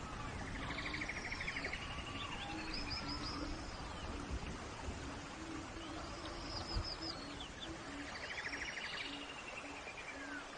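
Forest soundscape: songbirds calling in two bouts, with fast trills and whistled slides, over a steady hiss of rain and a low note that pulses again and again underneath.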